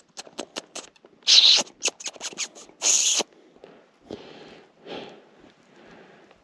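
Squirrel chattering close by: a quick run of sharp clicks with two louder rasping bursts in the first three seconds, then softer rustles.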